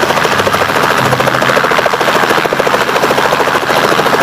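Helicopter running, its rotor beating in a fast, even rhythm over the engine.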